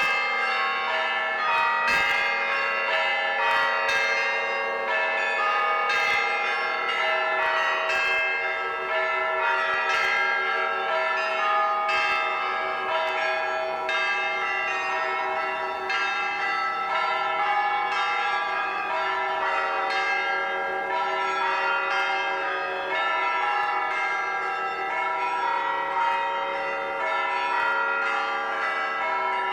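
Orthodox cathedral bells ringing continuously, several bells of different pitch struck in quick succession. Each new strike sounds over the hum of the ones before.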